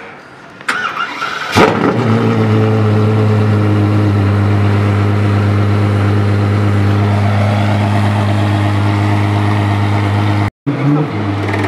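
DeTomaso P72's V12 engine being started: a brief crank, then it catches with a loud flare about a second and a half in and settles into a steady fast idle.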